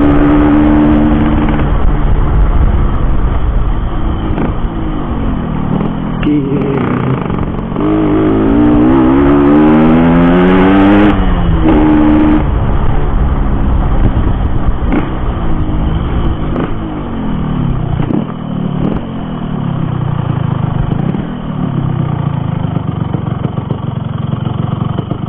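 Yamaha RX-King's two-stroke single-cylinder engine, fitted with a very loud racing exhaust, running under way. About eight seconds in its pitch climbs steadily as it revs up, then drops suddenly at a gear change just past eleven seconds; later it rises and falls more gently.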